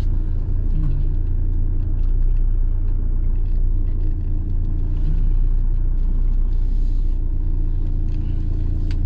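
Steady low rumble of a camper van driving, heard from inside the cab: engine and road noise with no sharp events.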